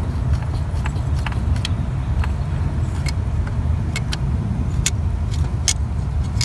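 Scattered light metallic clicks and taps as the oil pressure sensor is turned out of the engine block by hand, over a steady low rumble.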